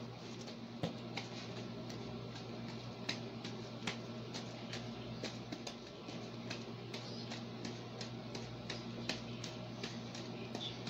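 Balls being tossed and caught by hand while juggling, giving irregular sharp taps about two or three a second over a steady low hum.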